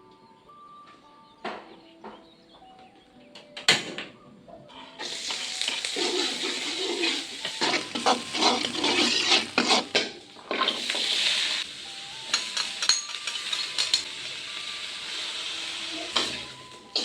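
Food frying in a pan: a loud sizzle sets in about five seconds in, with frequent clicks and scrapes of a utensil against the pan as it is stirred. Before that, a few knocks of kitchenware over soft background music.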